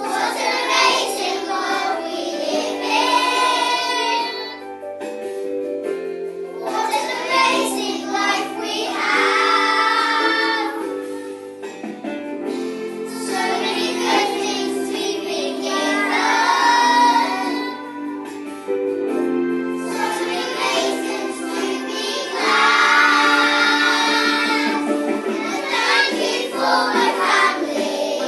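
A class of schoolchildren singing a song together to a musical accompaniment, in phrases of a few seconds with short breaths between them.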